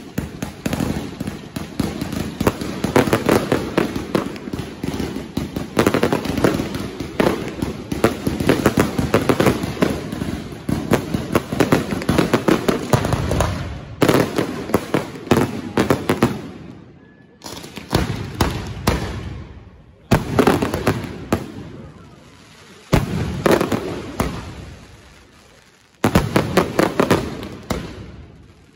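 Mascletà pyrotechnics by Pirotecnia Europla: a dense, rapid barrage of firecracker bangs for about fourteen seconds. After that come separate volleys every two to three seconds, each starting suddenly and fading away.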